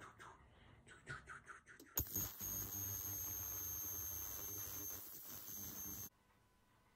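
Ultrasonic cleaner running with a steady low hum and a high whine as it washes polishing compound out of a watch bracelet. It starts suddenly about two seconds in and cuts off about four seconds later, after a few faint handling ticks.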